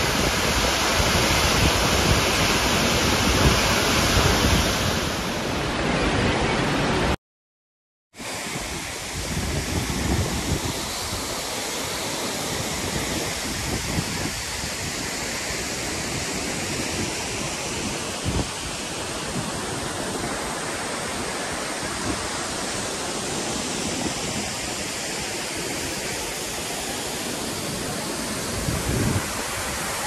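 Marmala Waterfalls plunging onto boulders close by: a steady rush of falling water. It cuts out for about a second some seven seconds in, then carries on a little quieter.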